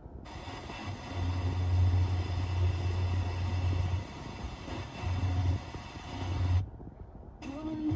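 An odd low droning hum coming over an FM radio broadcast, cutting in and out: a long stretch starting about a second in, then two short pulses, with a brief drop to dead air near the end.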